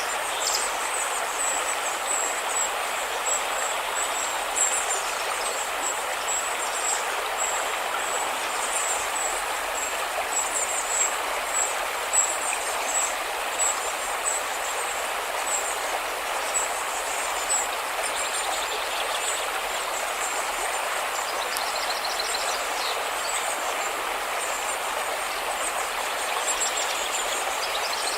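River water rushing steadily, with a thin, high chirping repeating throughout and a brief faster trill about two-thirds of the way through.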